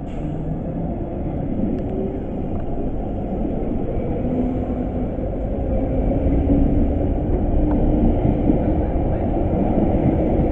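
London Underground 1973 stock train pulling away from the platform, a steady low rolling rumble of wheels and motors that grows louder as it gathers speed, with faint rising tones through it.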